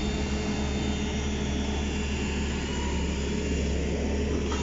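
Heavy earthmoving machinery's diesel engine running steadily at close range: a constant low drone with a steady hum above it and no change in speed.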